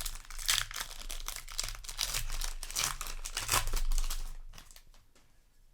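Foil booster pack wrapper being torn open and crinkled, an irregular crackle of tearing and crumpling foil that dies away about four and a half seconds in.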